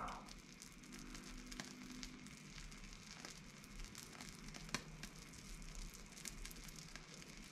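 Faint sizzling and crackling of beeswax and oil on a steel nut heated by a small torch flame, with scattered small pops.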